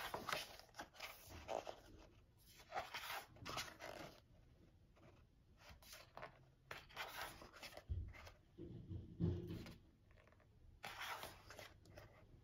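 Large glossy pages of a photo book turning and sliding under the hands, in several short bursts of paper rustle. A soft thump comes about eight seconds in and another a second later.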